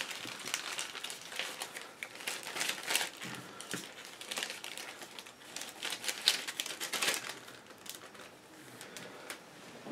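Clear plastic bags crinkling irregularly as small model-kit parts and a photo-etched brass fret are handled and slid back into them.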